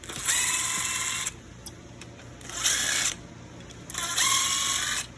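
Handheld power tool run in three short bursts, the first and last about a second long and the middle one shorter, its motor spinning up at the start of the first.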